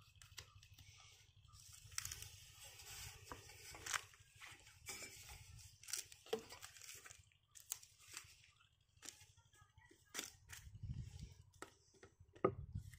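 Handling noises of hands working a rubber suction hose and pump fittings: rustling and scraping with scattered sharp clicks and taps, over a low rumble, with a louder knock near the end as a brick is handled. The engine is not running.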